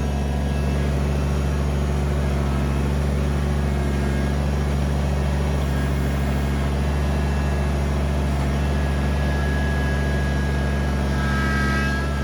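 Kubota BX23S compact tractor's three-cylinder diesel engine running steadily under work. A faint higher whine comes in near the end.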